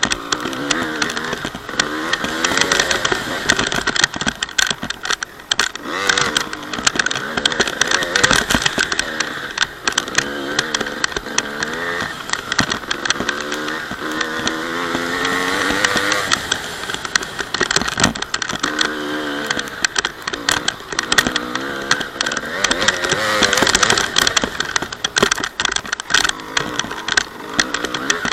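Honda CR250 two-stroke single-cylinder dirt bike engine revving up and down over and over as the bike is ridden hard, with frequent short knocks throughout.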